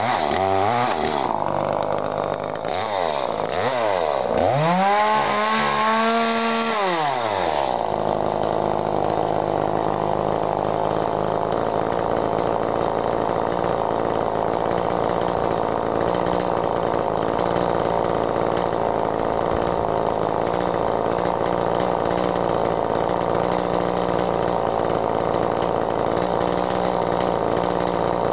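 Modified Echo CS-310 chainsaw's small two-stroke engine revved three times out of the cut, the third held at full throttle for a few seconds; its tune is set so it four-strokes when unloaded. About eight seconds in the chain enters the elm log and the saw runs steadily under load, lower in pitch, cutting through to the end.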